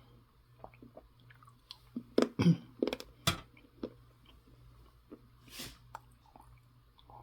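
A person chewing food close to the microphone, most likely the chocolate she has just named. A few sharp clicks and knocks come about two to three and a half seconds in, with a short breathy noise a little before six seconds.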